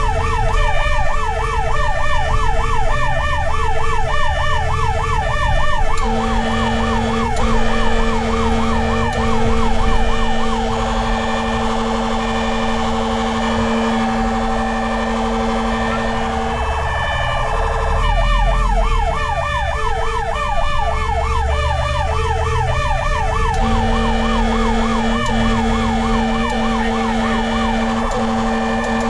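Fire rescue truck's sirens sounding en route. A fast up-and-down yelp sweeps several times a second, stops about ten seconds in and starts again about eighteen seconds in, over a second tone pulsing about once a second. A low steady tone joins for about ten seconds in the middle and again near the end, with engine rumble underneath.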